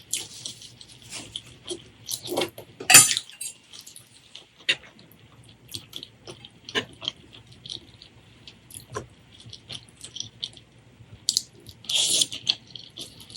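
Close-miked eating sounds: irregular wet chewing and mouth clicks, with a louder burst about three seconds in and another near the end.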